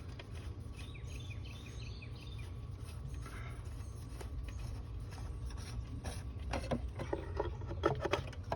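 Steady low background rumble with a run of short bird chirps about a second in, then a cluster of sharp clicks and knocks near the end.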